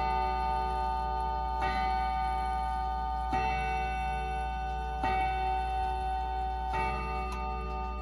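Howard Miller Worthington wind-up mantel clock striking the hour: four evenly spaced strikes about 1.7 seconds apart, each left ringing on under the next.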